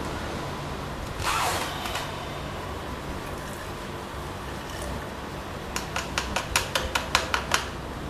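A brief rustle, then a quick run of about ten light clicks over a second and a half, over a low steady hum.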